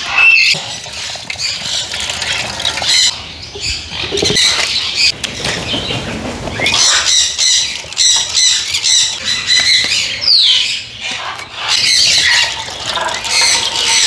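A flock of parrots, sun conures among them, squawking and screeching over one another in a steady, loud chorus of overlapping high calls.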